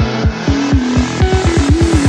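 Electronic dance music with a heavy kick drum under a held synth line; the kicks come faster and faster in the second half, building up like a drum roll.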